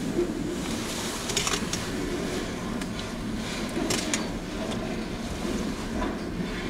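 Freight train cars rolling past at close range: a steady rumble of wheels on rail, with scattered clanks and a few brief high-pitched squeaks.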